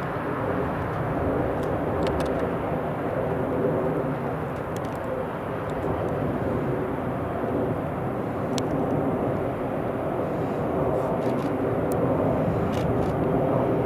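Steady jet aircraft noise across an airfield, a constant rumble with a faint hum in it and no change in level.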